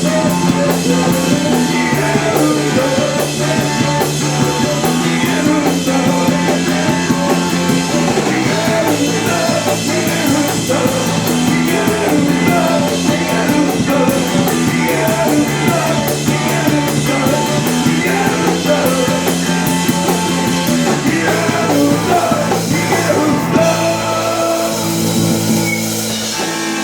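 Live rock band playing, with guitar, bass and drums; the bass steps to a new note every couple of seconds. Near the end the drums stop and held chords ring on.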